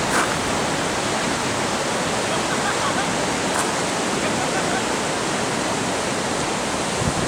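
Steady rushing of white water pouring through the rapids of a concrete artificial slalom channel.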